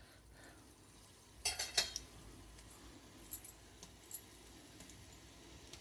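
A metal spoon clinking against a cooking pot, loudest in a quick cluster about one and a half seconds in, then a few lighter clinks.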